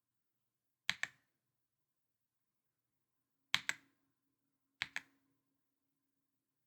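GMK67 mechanical keyboard with lubed and filmed KTT Kang White linear switches on a polycarbonate plate, three single keystrokes, spaced a second or more apart. Each is a sharp press click followed a moment later by a softer release click.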